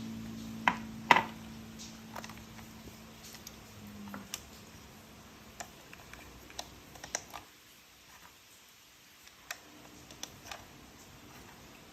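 Scattered clicks and taps of hard plastic toy parts being handled, with two louder knocks about a second in.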